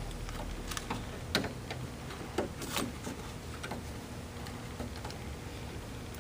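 Irregular light clicks and taps of a new plastic interior door handle being fitted onto a 1997 Toyota Camry's metal door control rods and slid into its slot.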